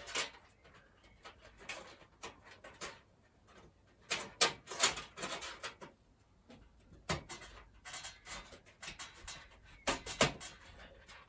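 Irregular clicks, taps and scrapes of a thin stamped-metal I/O shield being pressed and snapped into the rear opening of a PC case, with the sharpest clicks coming in clusters.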